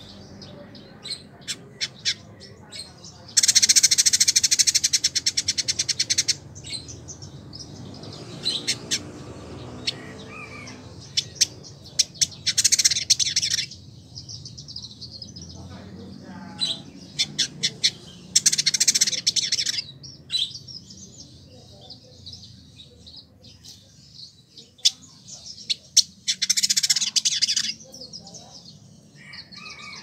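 Male village indigobird singing: sharp single chirps between four fast, buzzy rattling phrases of a couple of seconds each, high-pitched.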